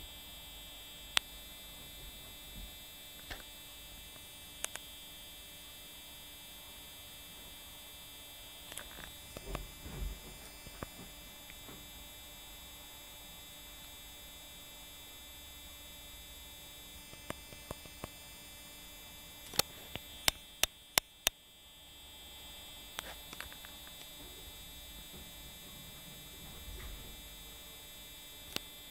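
A steady electrical hum with several faint high steady tones, broken by scattered sharp clicks, including a quick run of about five clicks around twenty seconds in.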